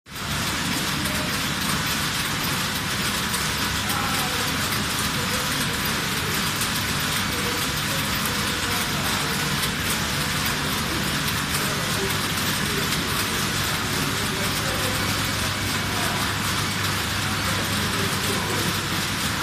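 A hall of computerized flat knitting machines running on a test run, making a steady, even mechanical din with a low hum underneath.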